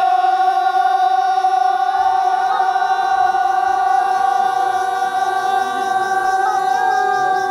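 Group of men chanting in unison, holding one long drawn-out note with a few voices wavering slightly above it: a Naga field-work chant (ohnet).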